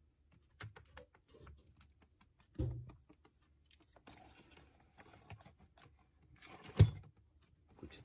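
Cockatiel moving about on a hard tabletop beside ceramic dishes: light clicks and taps of its claws and beak, a brief flutter of wings, and a few soft thumps as it lands and hops, the loudest near the end.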